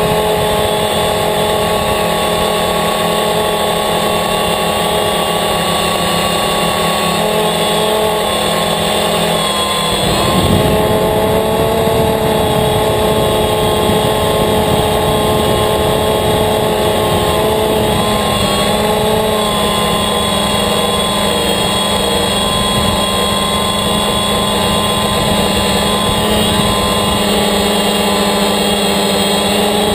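DJI Phantom quadcopter's motors and propellers, heard through the GoPro mounted on it: a steady hum of several tones that shift in pitch about ten seconds in as the motor speeds change.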